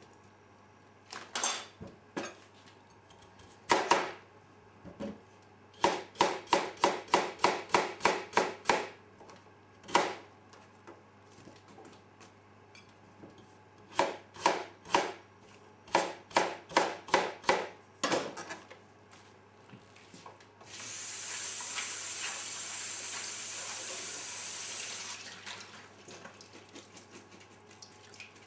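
A steel kitchen knife chops peeled potato on a plastic cutting board, making sharp knocks in bursts, with one quick run of about four strokes a second. About twenty seconds in, a tap runs steadily for about four seconds, rinsing the cut vegetables in a wire colander.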